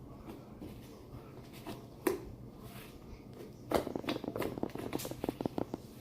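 Fluffy slime being mixed in a plastic container, giving a run of quick sticky clicks and squelches. There is one click about two seconds in, and the dense run starts past halfway.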